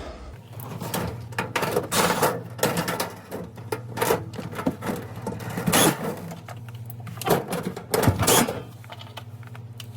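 Plastic refrigerator parts being handled and fitted back into place, giving irregular clicks, clatters and scraping over a steady low hum.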